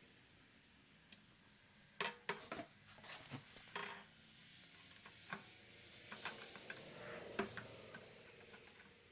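Light metallic clicks and taps as thin steel brake-linkage parts, a rod and spring, are handled and fitted at a moped's rear drum-brake arm. A quick cluster of clicks comes about two to four seconds in, then single taps every second or so.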